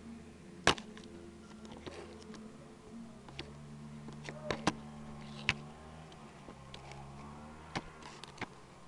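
Handling noise from a small handheld camera: sharp clicks and knocks from fingers on the camera body over a faint steady low hum, the loudest knock about a second in.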